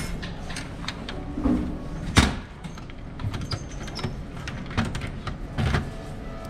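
Wooden shoe locker door shut with a sharp knock about two seconds in, followed by lighter clicks and rattles from its key lock being turned.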